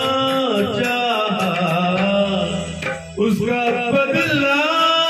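Man singing an old Hindi film song into a microphone, in long, wavering notes, with a brief break about three seconds in.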